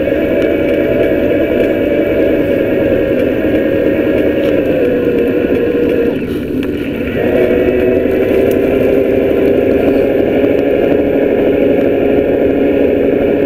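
Bafang BBS02 electric mid-drive motor running with a steady whine through the bike's drivetrain. It eases off briefly about six seconds in, then picks up again at a slightly lower pitch.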